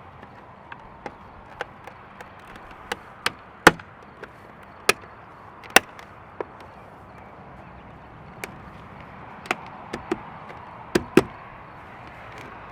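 Plastic side-mirror cover being handled and fitted to a truck's mirror housing: irregular sharp clicks and taps, about fifteen in all, the loudest about four seconds in and a pair near the end as it clips into place.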